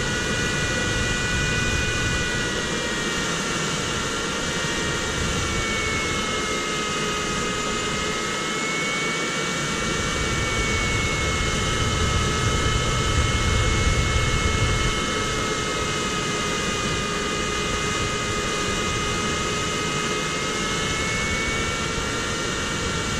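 Steady rush of airflow around an ultralight sailplane's cockpit and canopy in flight, with a few thin whistling tones that slowly drift in pitch.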